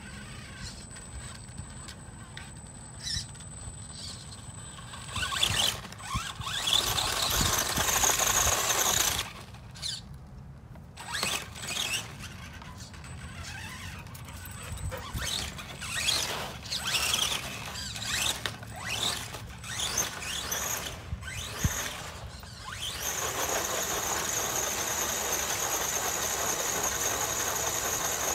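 Team Orion dDrive 2700kV brushless motor in an RC truck whining under throttle in several short bursts, with the tyres spinning on loose dirt; the longest, steady full-throttle run comes near the end.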